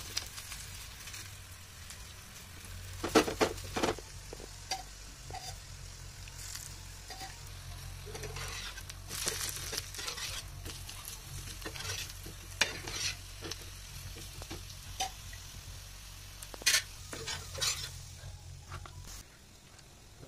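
Cabbage fritters sizzling as they fry in oil in a non-stick pan, a steady hiss broken by occasional sharp knocks and scrapes, the loudest a few seconds in and again near the end.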